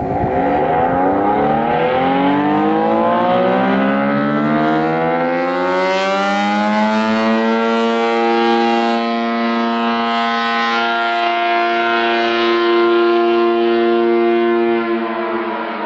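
ACA P50 outdoor warning siren winding up. Its pitch rises for about seven seconds to a steady chord that it holds until, about a second before the end, it starts to wind down.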